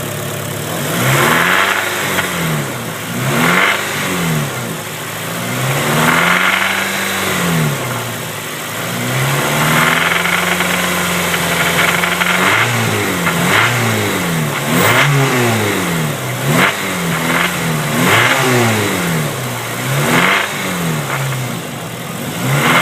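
Honda K20 four-cylinder engine in an EP3 Civic Si, blipped from idle about a dozen times, each rev rising and falling in pitch, one held for a couple of seconds about ten seconds in. A weird rattle comes in only briefly as the revs pass about 2,500 rpm and then goes away; the owner suspects the rocker assembly.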